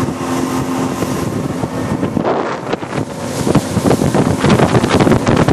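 A boat running on the river, with wind buffeting the microphone, the buffeting growing heavier and more broken about two seconds in.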